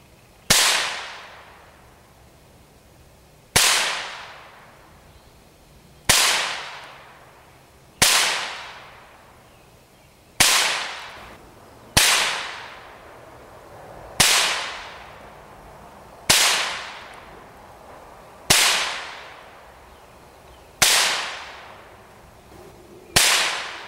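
Browning SA-22 semi-automatic .22 LR rifle fired eleven single shots, roughly two seconds apart, each a sharp crack that echoes away over a second or so.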